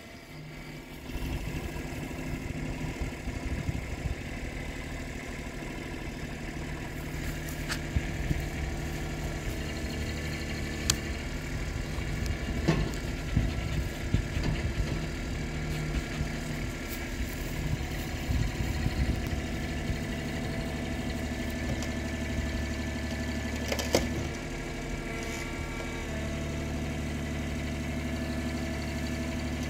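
Compact loader-backhoe tractor's engine idling steadily, with a few light knocks over it.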